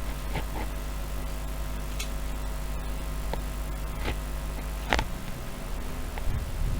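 Steady low hum with a handful of scattered sharp clicks, the loudest about five seconds in.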